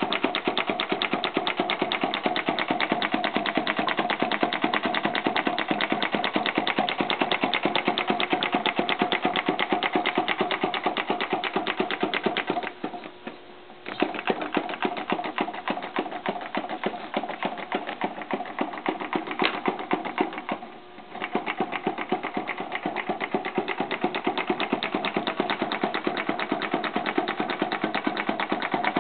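1897 Lowne atmospheric flame-licker gas engine running on propane, with a rapid, even clacking of its valve gear and piston. The sound drops away briefly twice, about halfway through and again about two-thirds of the way through.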